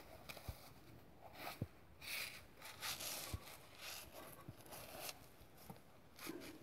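Paper towel wiped and scrubbed over carbon-covered piston crowns wet with cleaner, faint irregular rubbing strokes with a few soft knocks.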